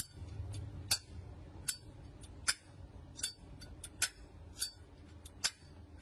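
Zippo 88th Anniversary lighter's brass-core chrome case, its hinged lid flicked open and snapped shut again and again. The result is a run of sharp metallic clinks and clicks, one loud one about every three-quarters of a second with fainter clicks between: the lighter's signature clink.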